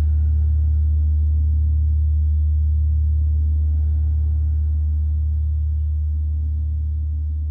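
Gong ringing on with a deep, steady low hum and a slow pulsing beat of about one swell a second, slowly fading.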